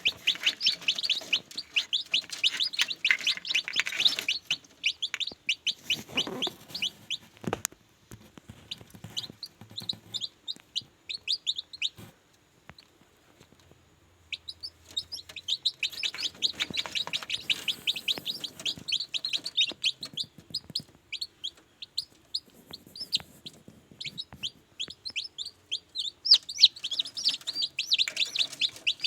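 Newly hatched kampung chicks peeping: many rapid, high, falling chirps in dense runs, with a short pause in the middle.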